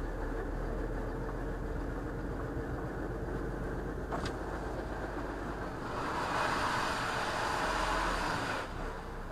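Lorry engine running and wet-road cab noise as the truck drives slowly, with a louder rushing hiss starting about six seconds in and cutting off sharply near the end.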